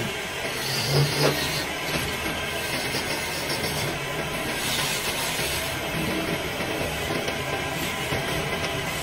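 Wood lathe running while a tool works the spinning wood, giving a steady hiss, with a couple of brief louder bumps about a second in.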